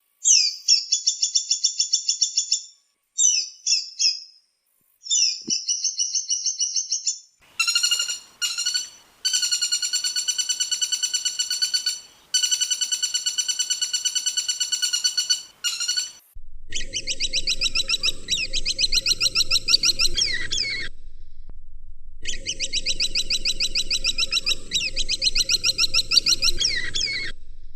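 Recorded woodpecker calls, three different call types played one after another. First come short rapid trills in several bursts. About seven seconds in, a fuller, buzzier pulsed call starts. From about sixteen seconds, long rapid rattling series play over a low hum.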